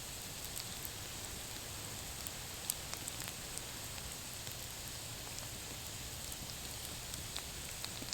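Potatoes frying in a cast iron skillet over a campfire: a steady sizzling hiss with scattered small pops and crackles, one sharper pop a little under three seconds in.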